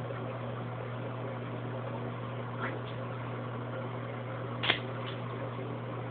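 A steady low mechanical hum, like a household appliance or fan, with two brief sharp high sounds, the second one, about two-thirds of the way through, the louder.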